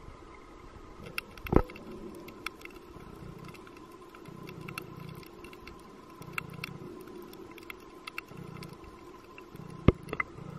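Underwater ambience picked up through a camera housing: scattered sharp clicks and crackles over a low muffled wash, with two loud knocks, one about a second and a half in and one near the end.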